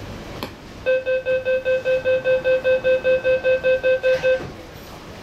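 Door-closing warning of an MTR SP1900 train: a rapid, even run of about sixteen identical electronic beeps, four to five a second, lasting about three and a half seconds while the doors shut.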